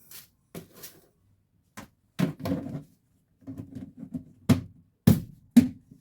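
Household items being handled and set down: a string of sharp knocks and clatters, the three loudest near the end.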